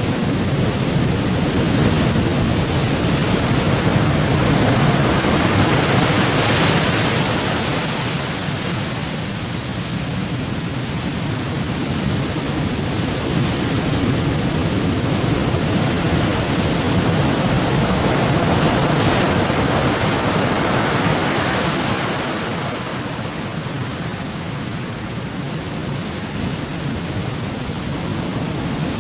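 Rough sea: waves rushing and breaking with wind, a continuous noisy wash that swells and eases twice.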